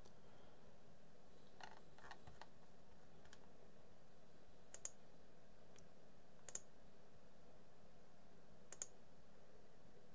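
Computer mouse button clicking a handful of times at uneven intervals, placing points along a spline, over a faint steady hiss. The three clearest clicks fall about halfway in, a little later, and near the end.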